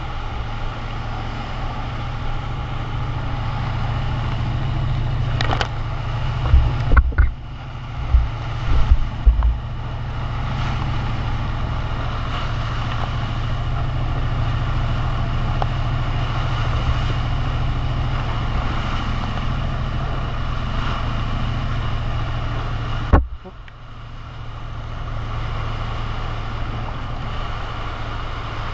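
Steady drone of a Malibu wakesurf boat's inboard engine under way, mixed with the rush of the wake. There are a few heavy wind buffets on the microphone partway through. About two thirds of the way in, the sound drops away abruptly and then builds back up.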